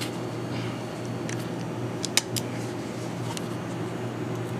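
A few light metallic clicks, the sharpest about two seconds in, as the Colt King Cobra revolver's cylinder latch is pulled back and the cylinder swung out, over a steady low hum.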